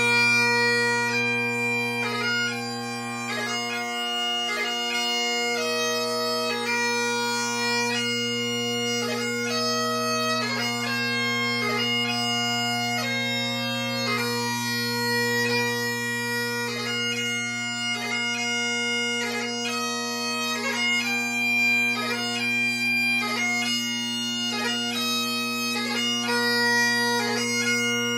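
Great Highland bagpipe playing piobaireachd: a slow chanter melody ornamented with quick grace notes over steady, unbroken drones. The deepest drone tone dips briefly about four seconds in.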